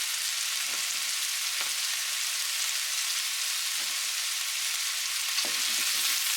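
Diced chicken breast sizzling steadily in hot oil in a frying pan, with a few soft knocks here and there.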